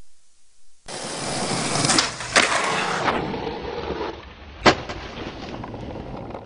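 Skateboard rolling, with two sharp clacks of the board about two seconds in and a louder single clack a little before five seconds.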